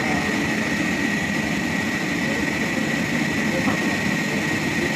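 Sawmill machinery running: a steady mechanical drone with a constant high whine.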